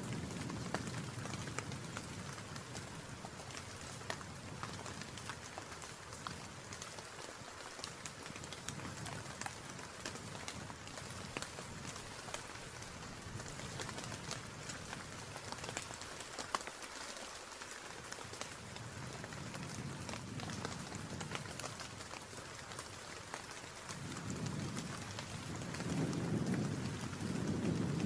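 Steady rain with a dense patter of drops. A low rumble fades over the first few seconds and swells up again near the end.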